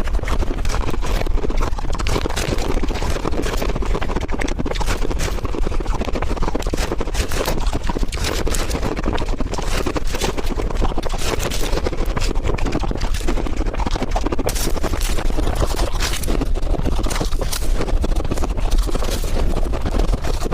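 Pink-coloured ice being bitten and chewed close to the microphone: dense, irregular crunching and cracking.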